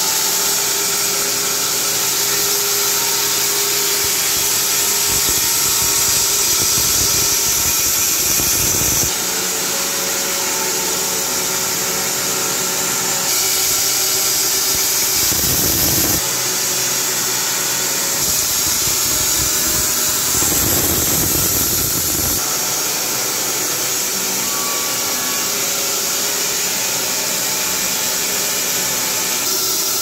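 Carpathian SMSA 110 band sawmill running, its electric-motor, belt-driven bandsaw blade cutting along a squared timber beam: a steady mechanical whirr with a hiss. The sound shifts abruptly several times.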